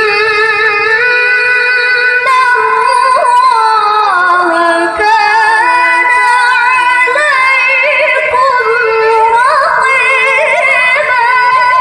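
A young woman reciting the Qur'an in the melodic tilawah style, holding long notes with wavering ornaments. About halfway through her pitch dips lower, then it climbs into higher runs near the end.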